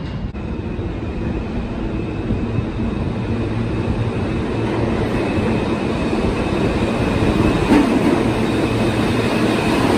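New York City subway train running, with a steady rumble and hiss that grows slowly louder.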